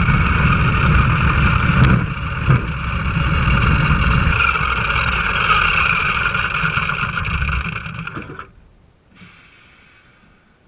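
Nanchang CJ-6A's nine-cylinder radial engine and propeller running on the ground, heard from inside the cockpit. The sound drops a little about two seconds in and again around four and a half seconds, then falls away sharply about eight and a half seconds in.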